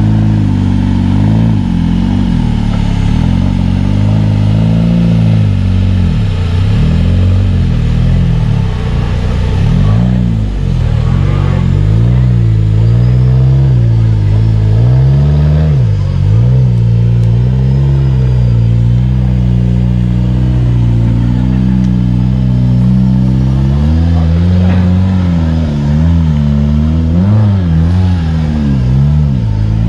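Four-wheel-drive competition truck engine revving hard and unevenly, its pitch surging and dropping again and again as the throttle is worked, with a burst of quick blips near the end.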